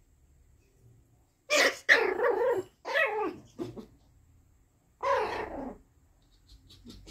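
Shih Tzu puppies barking at each other in play: a close run of barks starting about a second and a half in, then one more about five seconds in.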